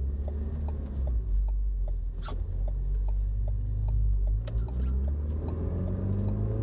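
Car running with a low rumble that rises in pitch near the end, and a regular tick about two or three times a second running through it: the weird noise whose cause is unknown.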